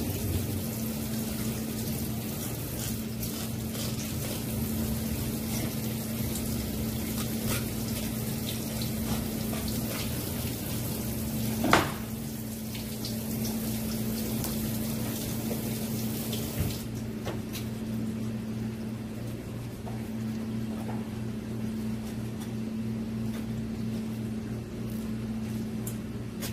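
Steady low hum under an even hiss, with one sharp knock about twelve seconds in; the high part of the hiss drops away at about seventeen seconds.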